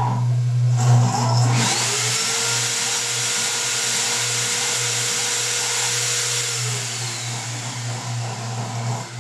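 Air-cooled 300 W spindle of a desktop CNC milling machine spinning up about a second and a half in, then running with a steady whine and loud hiss; its pitch drops toward the end.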